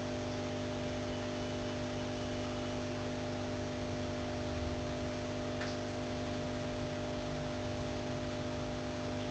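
Steady electrical hum with a buzzing edge over a constant hiss, unchanging throughout; a faint short tick about five and a half seconds in.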